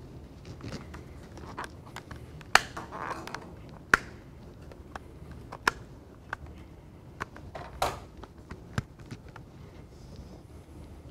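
Scattered sharp clicks and taps, a few seconds apart, the loudest about two and a half seconds in, with brief rustling, over a steady low room hum.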